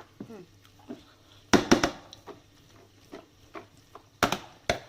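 Sharp knocks of a kitchen utensil against cookware: three in quick succession about one and a half seconds in, and three more near the end.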